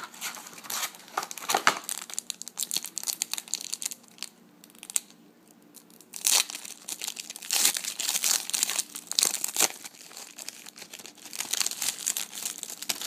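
Foil wrapper of a trading card pack crinkling and tearing as it is opened, in irregular crackly spells with a quieter stretch in the middle.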